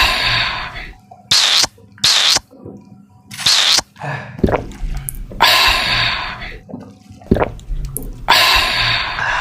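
People gulping cold Coca-Cola as fast as they can, with wet swallowing and slurping and short breathy, hissing gasps. There are about six separate bursts, two of them about a second long, with quieter gaps between.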